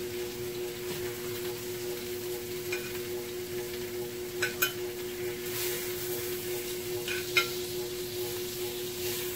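Chicken sizzling steadily in a frying pan, with a handful of short clinks of a utensil against the pan, a pair about four and a half seconds in and another pair near seven seconds. A steady hum runs underneath.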